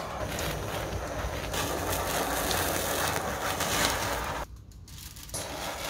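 Handheld butane torch burning with a steady hissing jet flame as it sears a steak. The hiss drops away for about a second near the end, then comes back.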